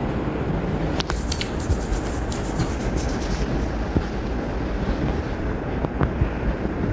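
Steady low rumble of background noise, with rustling and a few light clicks between about one and three and a half seconds in.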